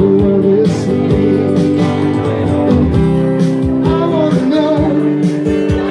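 A male voice singing with a strummed acoustic guitar: a solo singer-guitarist performing a pop song live into a microphone.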